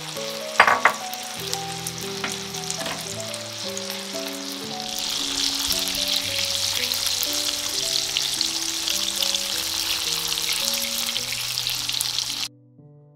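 Food frying in a pan, sizzling, louder from about five seconds in, with a sharp clatter under a second in; the sizzling cuts off suddenly near the end.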